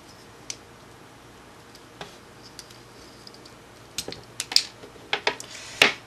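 Blue plastic universal cable stripper worked around a Cat5e network cable to cut and pull off the outer jacket: a few faint ticks at first, then a cluster of sharp clicks and short scrapes in the last two seconds.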